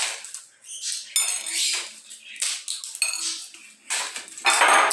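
Dry fava (lima) bean pods rustling and crackling as a hand rummages through them in a glass bowl, with light knocks against the glass. The crackling comes in several short bursts, the longest and loudest near the end.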